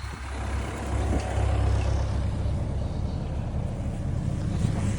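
Diesel engine of a John Deere 60P mini excavator running steadily at idle, a low rumble that grows louder about a second in and then holds.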